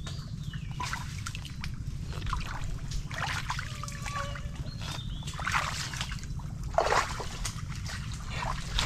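Shallow muddy tidal water splashing and trickling in small, irregular bursts as a baited line is jiggled in a mudskipper burrow, the strongest splash about seven seconds in. A steady low background noise runs underneath.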